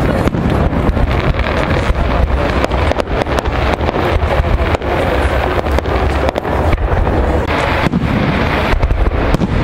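Fireworks display: a continuous run of pops and crackles from bursting shells and rising rockets, over heavy wind buffeting on the microphone.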